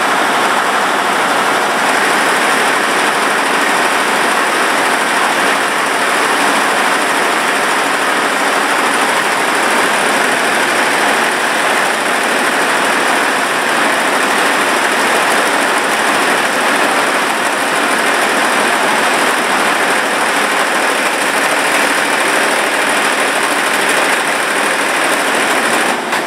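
Steady, loud rushing noise of running machinery, even throughout with no rhythm or change in pitch.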